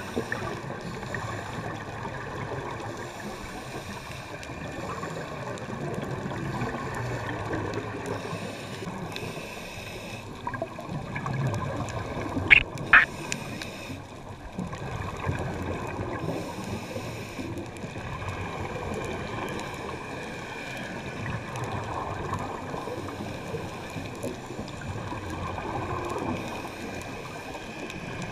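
Underwater ambience heard through a GoPro's waterproof housing: a steady muffled rushing hiss of water, with two short sharp clicks close together a little before halfway through.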